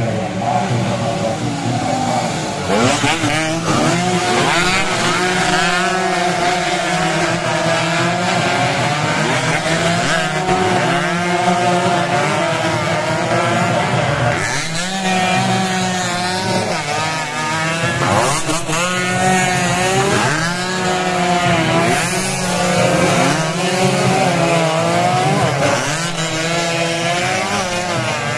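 Two-stroke 116 cc road-race motorcycles passing one after another at high revs, their engine pitch climbing through the gears and dropping away as each goes by, often several at once.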